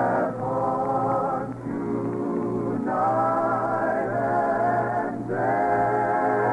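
Choir and orchestra music holding long sustained chords that change every one to two seconds, with brief dips between phrases.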